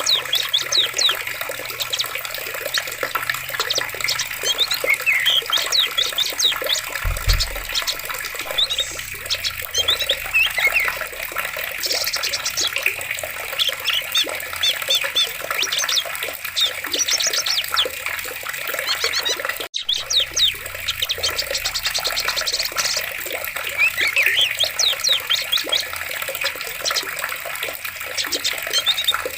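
Running water rushing steadily, with many small birds chirping and trilling over it throughout. There is a brief low thump about seven seconds in and a momentary cut-out about two-thirds of the way through.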